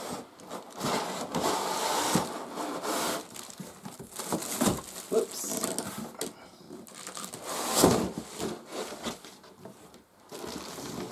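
Cardboard box and packaging rustling and scraping as a boxed upright vacuum cleaner is lifted out, with several knocks; the loudest bump comes about eight seconds in.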